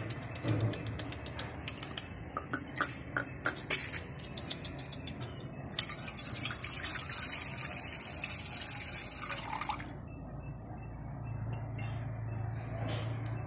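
Wine poured from a glass bottle into a stainless steel bowl: a steady splashing pour of about four seconds, starting a little after halfway through. Before it comes a run of small clicks and taps.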